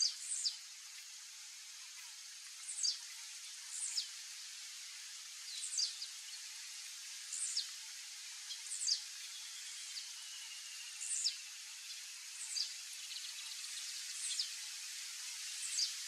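Male blue-black grassquit singing its short, high note, a quick downward sweep, repeated about every one and a half seconds, over a steady background hiss.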